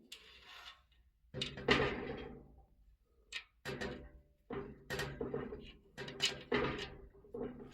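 A series of irregular knocks and clunks, each dying away with a short ringing tail, over a faint low steady hum.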